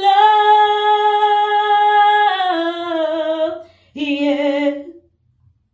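A woman's voice singing a cappella, with no instruments: one long held note that steps down to a lower note a little past two seconds in, then a shorter sung note at about four seconds.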